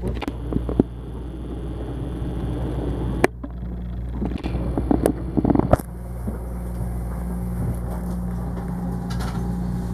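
Cabin noise of an HB-E300 series hybrid railcar moving slowly: a steady low hum from its drive. A few sharp clicks come near the start, and a cluster of knocks and crackles about five seconds in.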